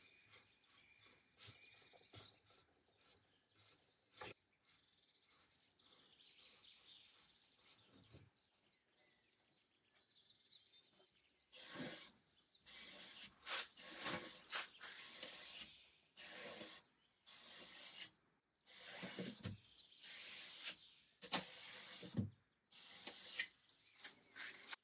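A cloth wiping wood stain onto a veneered wood panel. Faint rubbing at first, then from about twelve seconds in a steady run of louder wipe strokes, roughly one a second.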